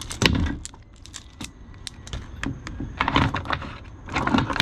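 Small metal nano sockets on a plastic socket rail clicking and rattling as the rail is handled, in scattered bunches of light clicks that grow busier near the end.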